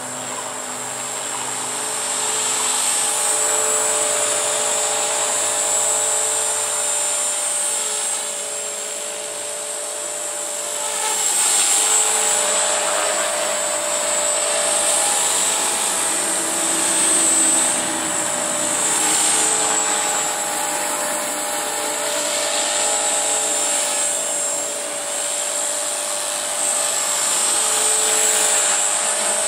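Walkera V450D03 electric RC helicopter in flight: the high whine of its motor and the steady hum of its rotor blades, swelling and fading as it moves about.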